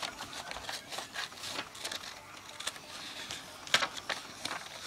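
Scissors snipping through paper in a run of short, crisp cuts, then paper rustling as the cut sheet is handled, with a louder cluster of clicks and rustles near the end.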